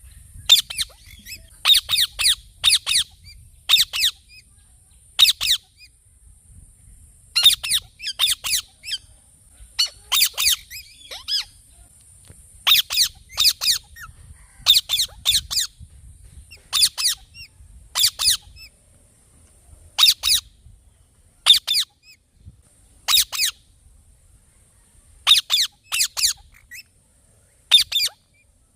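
A parrot giving loud, shrill squawking calls in quick clusters of two to four notes, repeated every second or two with short pauses between. A faint steady high hiss sits under the calls.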